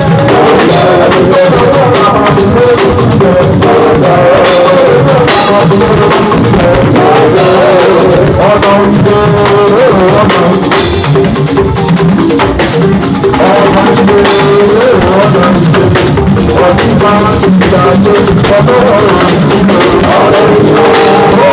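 Music with a steady drum beat and rattling, shaker-like percussion, with singing over it.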